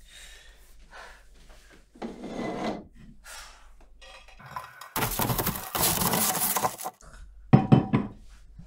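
Kitchen handling noises: a glass plate of cookies scuffing and clinking as it is set on a counter, with rubbing and scraping. About halfway through comes a loud rough rushing noise lasting about two seconds, then a few sharp knocks near the end.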